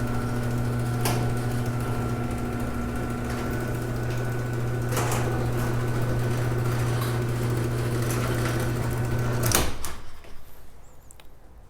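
Garage door opener motor running steadily as the door opens, with a few light knocks from the door and rail; it stops with a click a couple of seconds before the end, when the door reaches the top of its travel.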